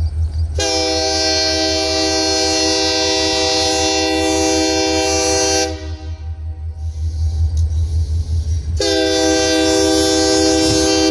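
Union Pacific diesel locomotive's air horn sounding two long blasts for a grade crossing, the first about five seconds long, the second starting near the end, over a low rumble.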